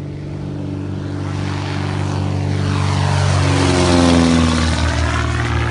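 Single-engine propeller light aircraft climbing out just after takeoff with its engine at full power. It grows louder as it passes close by about four seconds in, its pitch dropping as it goes past and away.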